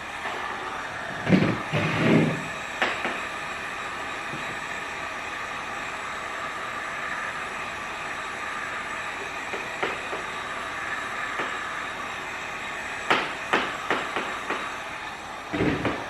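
Heat gun blowing steadily while vinyl graphics are worked onto plastic panels, with a few short knocks and handling thumps about a second in and again near the end.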